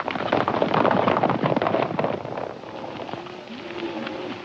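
Hooves of a group of horses galloping off together, a dense rapid clatter that dies down after about two and a half seconds. Cattle lowing follows near the end.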